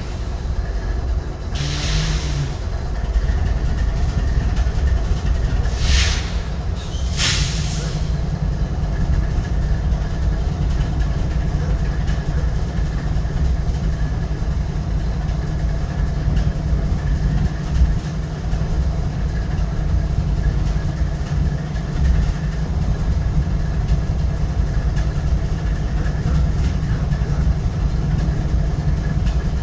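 GE ES40DC diesel locomotive's GEVO-12 V12 engine idling steadily, a low, even idle. Three brief hisses come about two, six and seven seconds in.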